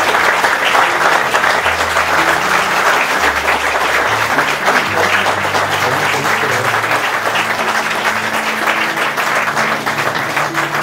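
A crowd of wedding guests applauding steadily, many hands clapping at once, with low sustained music notes underneath.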